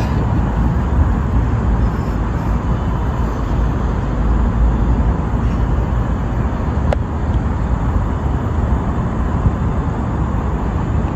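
Steady low rumbling noise, with a single sharp click about seven seconds in.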